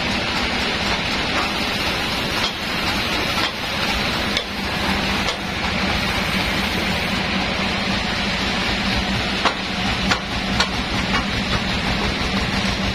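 Sawmill machinery running steadily, a constant hum under an even hiss. Several sharp knocks sound over it, a few in the first half and three close together about ten seconds in, as the forked log is shifted on the steel carriage.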